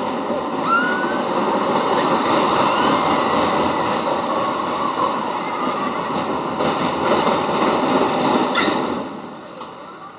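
Caterpillar kiddie roller coaster running on its steel track: a steady rumble of the cars' wheels on the rails, dropping away about nine seconds in.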